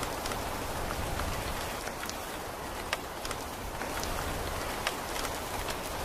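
Steady rain falling on wet soil and a muddy puddle, an even hiss with scattered sharp drop ticks.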